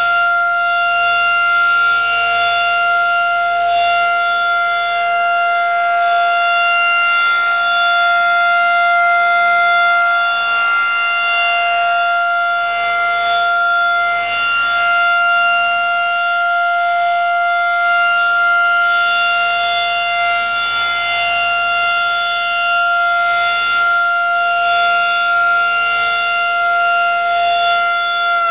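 Federal Signal 2001 DC rotating outdoor warning siren sounding a loud, steady single tone for its monthly test, the level swelling and fading gently as the rotating horn sweeps around.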